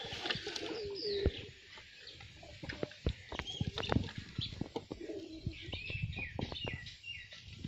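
Domestic pigeons cooing in a wooden loft, with higher bird chirps and scattered light taps and scuffs.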